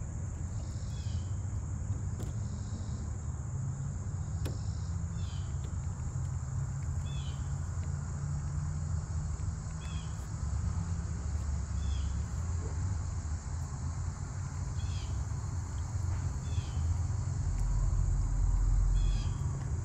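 Steady high-pitched insect chorus with short bird chirps every second or two, over a low rumble that swells briefly near the end.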